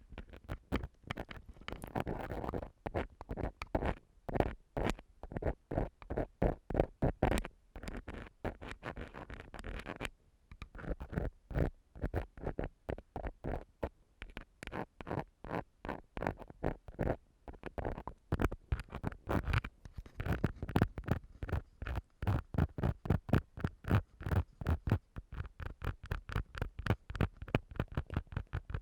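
Ear-cleaning tool scratching and rubbing on a microphone for ASMR ear-cleaning sounds, in quick repeated strokes several a second, with a short pause about ten seconds in.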